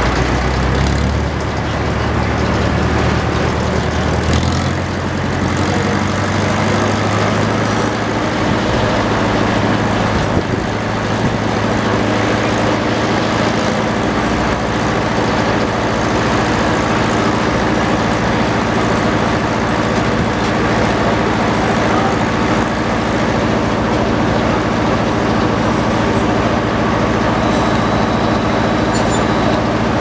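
Antique belt-driven circular sawmill running with its large blade spinning free, not cutting, and the engine that drives it running steadily. Its pitch shifts slightly about four and a half seconds in.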